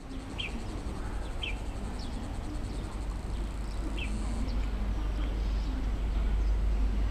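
Birds chirping in short high calls, roughly one a second, over a low rumble that grows steadily louder as a distant diesel freight locomotive approaches.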